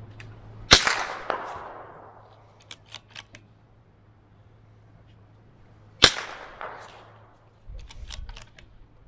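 Two shots from a CZ 457 MTR .22 LR rimfire rifle, about five seconds apart, each a sharp crack with a fainter crack about half a second after it and a fading tail. Between and after the shots come short runs of small metallic clicks as the bolt is worked.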